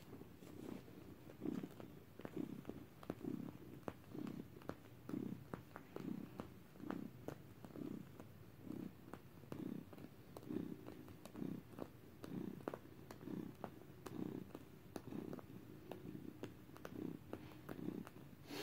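Domestic cat purring close to the microphone, a low rumble that swells and fades about twice a second with each breath in and out, with light ticks scattered through it.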